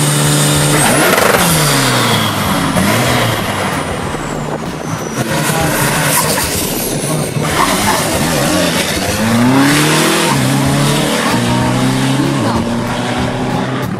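Diesel pickup truck engines revving hard and accelerating down a drag strip. The pitch drops about a second in, then climbs again in repeated steps as the trucks shift up through the gears.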